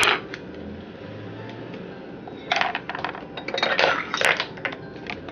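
Kitchen clatter of dishes and utensils. A sharp loud clack comes right at the start, and a run of clinks and rattles about halfway through.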